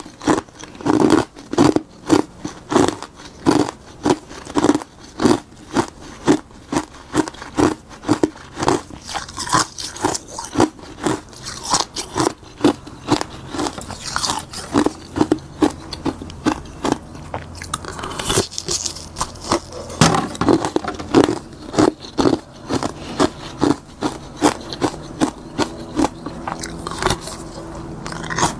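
Frozen bitter-buckwheat-tea ice being bitten and chewed close to the microphone: a fast, steady run of crisp, loud crunches, about two a second, with a short lull past the middle.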